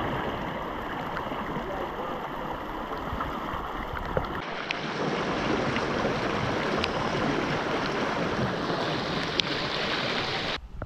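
Muddy floodwater rushing and churning in a steady wash of water noise. The sound shifts about four seconds in and carries on as an even wash.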